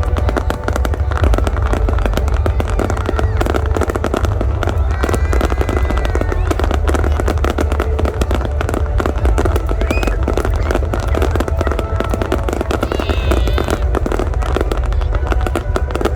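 Fireworks display with rapid, continuous crackling and booming bursts over music.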